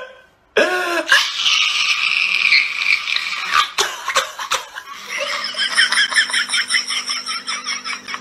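A person laughing, breaking about five seconds in into a long run of quick, rhythmic bursts of laughter.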